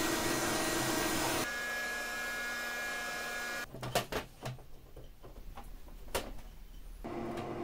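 Hot-air heat gun blowing steadily, a hiss with a low hum, melting chunks of polystyrene foam; its sound shifts about a second and a half in. It stops a little over halfway through, leaving a few knocks and scrapes of a glass bottle pressing the softened foam lumps on a metal sheet, and the heat gun blows again near the end.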